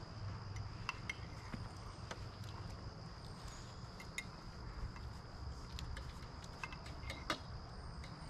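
Spoons clinking lightly against cups and bowls during a meal, a dozen or so scattered small clicks, over a steady high insect drone and a low rumble.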